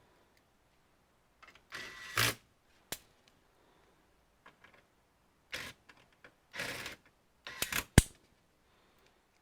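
Computer parts being handled during disassembly: a scatter of short scrapes and rustles with a few sharp clicks, the loudest a single sharp click near the end.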